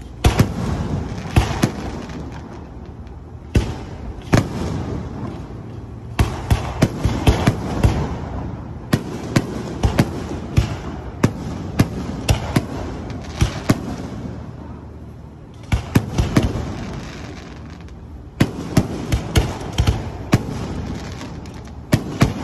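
Aerial fireworks display: shells launching and bursting in a long series of sharp bangs, bunched in clusters with a few brief lulls. A steady rumble and crackle runs between the bangs.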